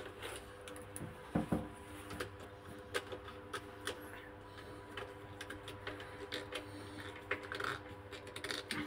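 Scattered light clicks and scrapes of a screwdriver working the terminal screws of miniature circuit breakers in a distribution board, over a faint steady hum.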